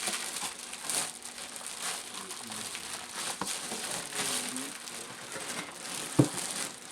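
Packaging being handled and unwrapped by hand: continuous crinkling and rustling with small clicks, and a sharper knock about six seconds in.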